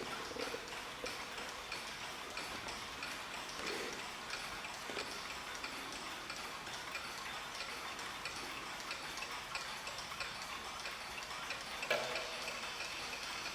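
Mechanical mantel clocks ticking steadily, a quiet even stream of ticks.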